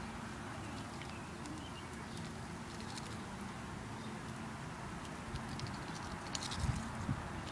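Duck pecking goldfish crackers off the grass with its bill: a scatter of quick clicks and taps, busiest near the end, over a steady background hiss.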